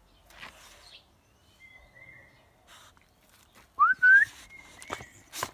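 Whistled calls: a faint held note about two seconds in, then two quick, loud rising whistles about four seconds in and another short held note. A dog gnawing meat bones from its bowl gives a few faint clicks.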